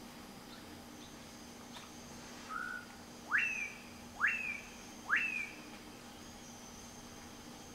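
A bird calling: a short lower note, then three loud, steeply rising whistles about a second apart, each dipping slightly at its top.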